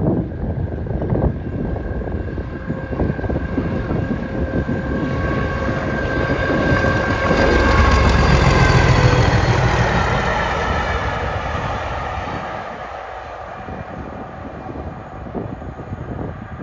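English Electric Class 37 diesel locomotive passing at speed. Its V12 engine grows louder with a high whistle over the rumble, peaks as it goes by about eight seconds in, then fades as the train rolls away.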